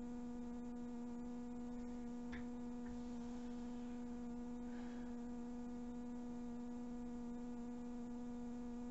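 Steady electrical hum with one even pitch and its overtones, from the powered toy train layout, with faint scattered light clicks from the trains running on the tinplate track.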